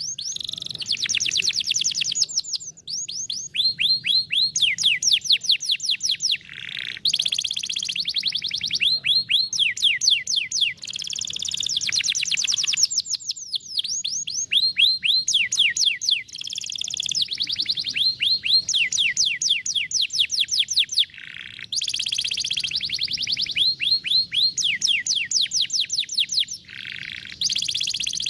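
Canary singing fast rolling trills of rapidly repeated downward-sweeping whistles, in phrases of a few seconds broken by short pauses. This is the trill that canary keepers call the 'vara de pescar' (fishing rod) song.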